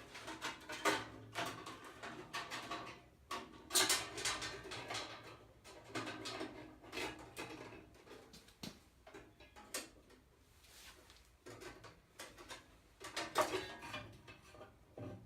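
Irregular metallic clicks, knocks and rattles of a bandsaw blade and saw parts being handled during a blade change on a Rikon 14-inch bandsaw, with louder clusters about four seconds in and near the end.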